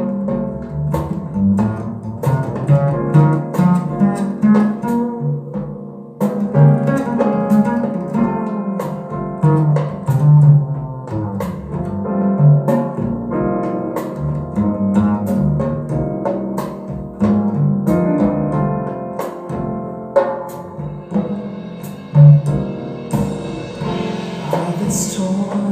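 Instrumental passage of a rock song played back through Wharfedale Diamond 220 speakers: guitars and bass over a drum kit, with a bright cymbal wash swelling near the end.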